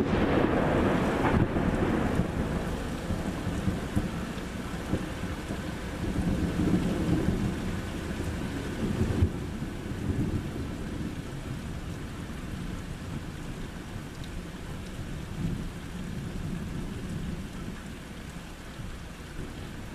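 Thunder over steady rain: a loud crash at the start rolls on as low rumbling, swelling again a few times and slowly dying away.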